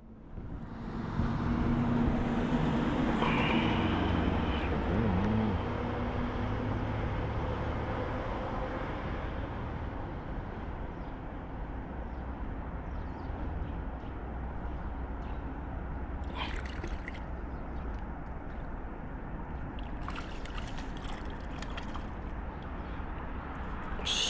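Steady outdoor rushing noise, louder for the first several seconds, then even, with a few short clicks in the last third.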